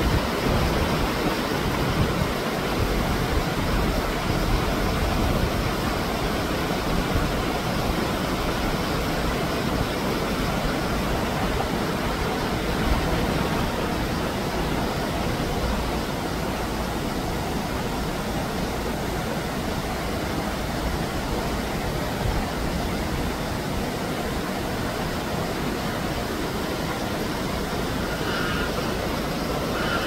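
Shallow mountain stream running over rocks: a steady rush of water. A couple of faint brief tones come in near the end.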